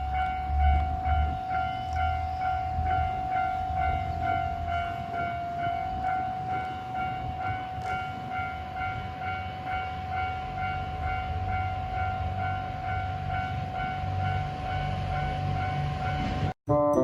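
Japanese railway level-crossing warning bell ringing in an even, rapid repeat, over a low rumble; it cuts off suddenly near the end.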